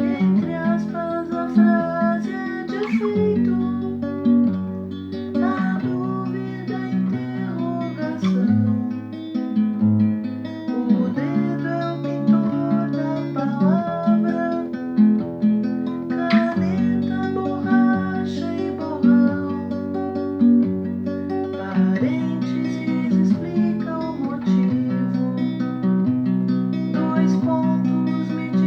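Music: an acoustic guitar strummed in chords that change every second or two.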